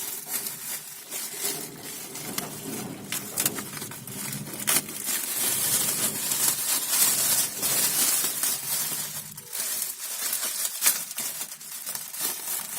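Packaging crinkling and rustling as a car subwoofer is unpacked from its box, with many small clicks and knocks throughout.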